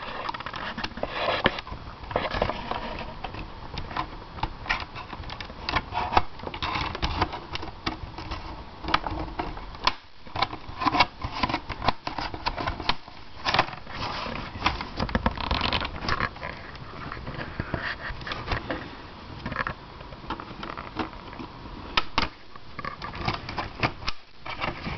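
Plastic LCD bezel of a Toshiba Tecra 9100 laptop being pried off with a screwdriver: many irregular clicks, snaps and scrapes as the plastic edges and clips work loose.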